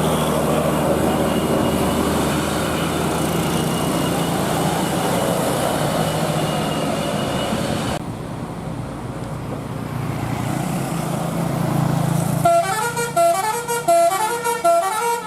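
Bus engine running steadily. About twelve seconds in, a telolet musical bus horn starts playing a quick repeating tune of stepping notes.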